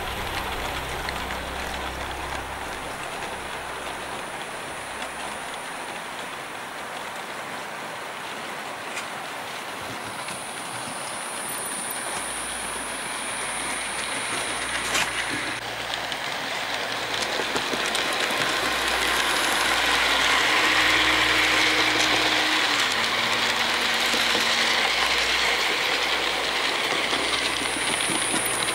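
Model railway trains running on the layout track: a steady rolling rattle of wheels on rails as a locomotive and its coaches pass, growing louder partway through.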